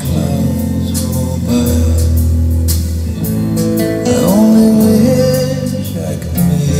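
A recorded song with a singing voice and guitar, played back over North American Sound studio monitor loudspeakers in a room.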